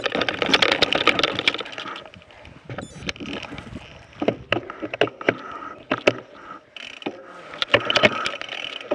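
Mountain bike rolling down a rocky dirt singletrack: the tyres crunch over dirt and gravel, the rear hub ratchets as it coasts, and the bike rattles and knocks over rocks. The loudest, busiest stretch is in the first two seconds, with scattered sharp knocks after that and a busier spell again near the end.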